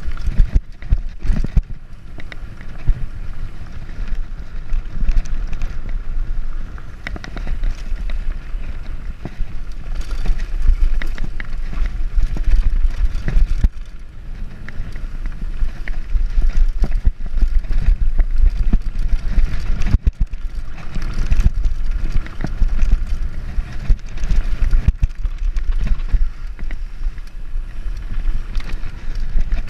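Mountain bike riding downhill on a dirt and stony trail: tyres rolling and the bike rattling, with many sharp knocks over bumps, under a strong low rumble of wind on the microphone.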